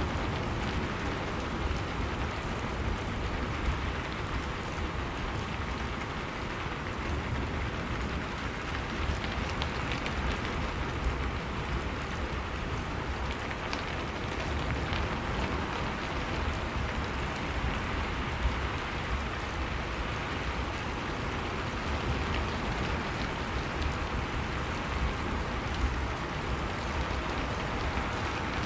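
Heavy rain pouring steadily, an even hiss with a few scattered drop ticks.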